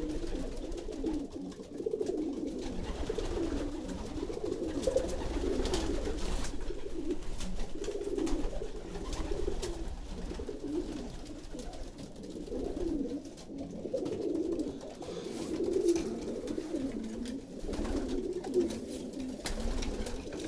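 Many racing pigeons cooing together, their low coos overlapping and wavering without a break: the courtship and nest-box cooing of a breeding loft at pairing time. A wing flutter is heard now and then as a bird takes off.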